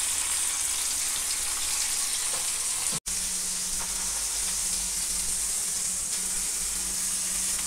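Marinated chicken leg pieces sizzling in hot oil and butter in a non-stick frying pan over a high gas flame: a steady frying hiss. It cuts out for an instant about three seconds in, and a low hum runs under the sizzle after that.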